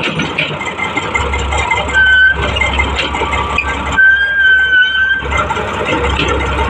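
Heavy earthmoving machinery, an excavator and a bulldozer, running with a steady low engine rumble and clatter. A high, steady squeal cuts through twice: briefly about two seconds in, and for over a second about four seconds in.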